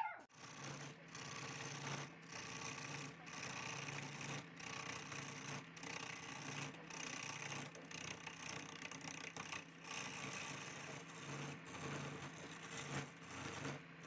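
Wood lathe running as a turning tool cuts the spinning wood, a steady scraping noise over a low motor hum, broken by short gaps about once a second.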